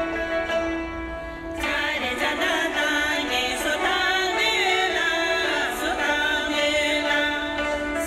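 Tibetan folk music on dramyen (long-necked Tibetan lute) and gyumang (hammered dulcimer struck with bamboo beaters), with a singing voice. Held tones give way about one and a half seconds in to a fuller passage of struck and plucked notes under the voice.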